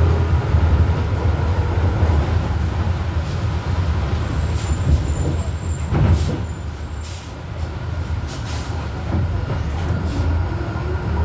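Volkswagen Volksbus 17.230 OD Euro 5 bus driving at low engine speed: a steady deep engine rumble with the growl of its gearbox on top. A few short hisses come through in the middle.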